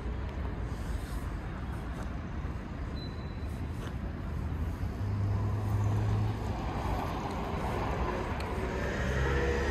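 Road traffic on a wide city street: a steady wash of passing cars, with a low engine hum about halfway through and a louder vehicle going by near the end.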